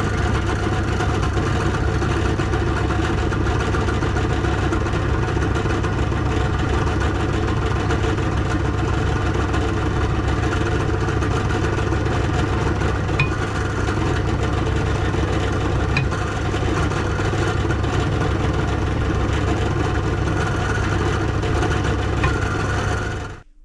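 Benchtop drill press running steadily with a polishing pad in its chuck, a stainless steel flat bar held against the turning pad and buffed with polishing compound for a mirror finish. The steady hum stops abruptly near the end.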